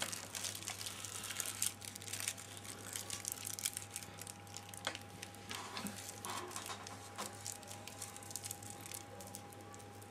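Rolling paper crinkling and rustling as fingers roll and twist a joint, with small crackles, louder in the first couple of seconds. A faint steady hum runs underneath.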